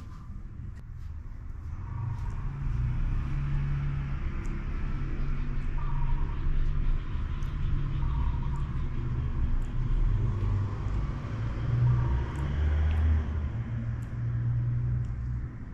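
Low rumble of a motor vehicle running nearby, building over the first couple of seconds and easing off near the end. Faint bird chirps come through several times.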